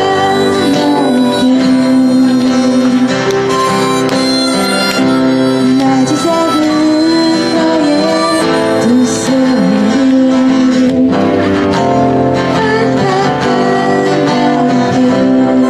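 A band playing live: a melody instrument holds long, sliding notes over guitar accompaniment.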